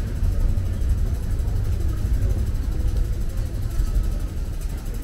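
Busy railway station concourse ambience: a steady deep rumble with a fainter wash of crowd noise above it.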